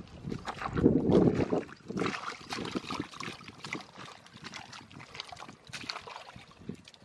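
Hands and feet squelching and splashing through wet mud and shallow muddy water in irregular slaps, loudest about a second in and softer toward the end.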